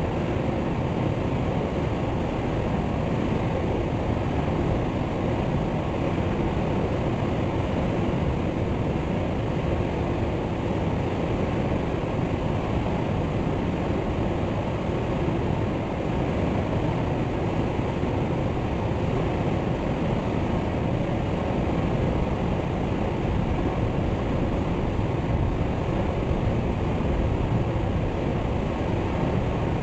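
Waterfall: a steady, unbroken rush of falling water, heaviest in the low end, with no birdsong.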